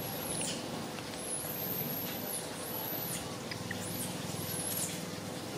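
A series of six thin, very high-pitched squeaks, each ending in a quick downward drop, over a steady background hum.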